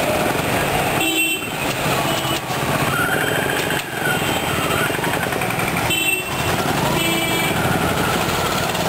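Street traffic of motorcycles, scooters and auto-rickshaws running past, with short horn honks several times over the steady engine noise.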